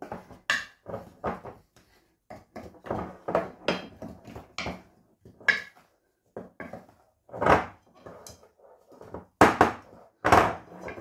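Wooden spatula stirring dry flour mix in a bowl: irregular scrapes and knocks of the spatula against the bowl, about two or three a second, the loudest few in the second half.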